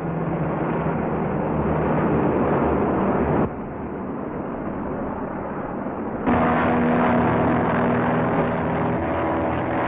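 Propeller airplane engines droning steadily. The drone drops abruptly about three and a half seconds in and comes back louder and higher-pitched a little after six seconds.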